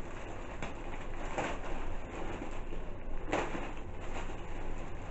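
Clear plastic packaging rustling and crinkling as it is handled, with two louder crackles, about a second and a half in and again past three seconds.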